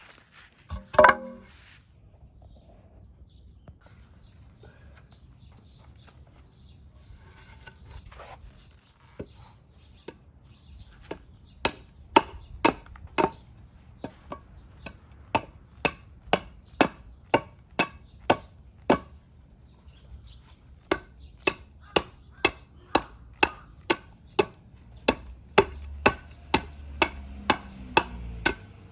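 A hand axe chopping wood: one loud knock about a second in, then a long run of even, sharp chops at close to two a second, broken by a short pause about two-thirds of the way through.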